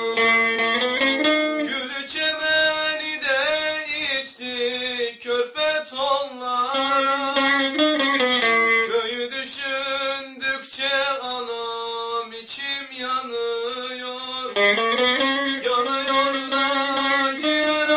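A man singing in long, wavering melodic lines to his own strummed and plucked bağlama (long-necked Turkish saz).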